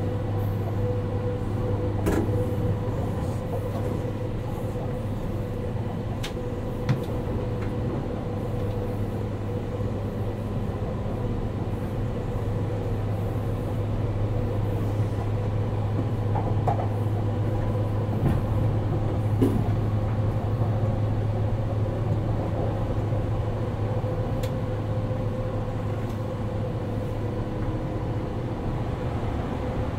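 Interior running sound of a JR 189 series electric train, heard in the motor car with its MT54 DC traction motors: a steady low rumble and hum at an even speed, with a few faint clicks.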